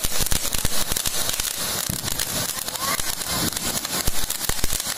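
Ground fountain firework spraying sparks: a steady hiss thick with rapid crackles.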